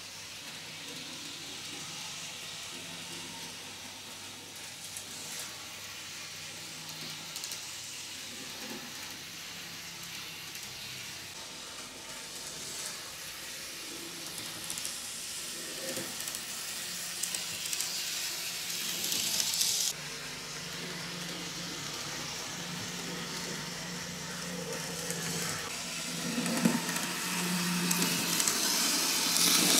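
Kato N gauge Type 8620 model steam locomotive running around the track loop, a steady whirr and hiss of its small motor and wheels on the rails while it is run in at about half power. The sound swells as the locomotive passes close by, once about two-thirds of the way through and again near the end.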